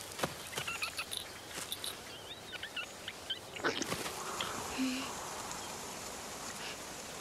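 Red fox digging and scratching at a mound of loose earth: a patter of short scrapes and soft knocks, with a few brief high squeaks among them. After about four seconds the scraping gives way to a steady outdoor hiss.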